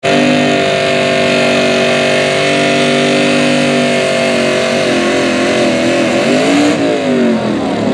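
Pro Stock mini truck, a Chevrolet S-10, pulling a weight sled, its engine at high revs under load. The pitch holds steady for about four seconds, then wavers up and down and falls near the end.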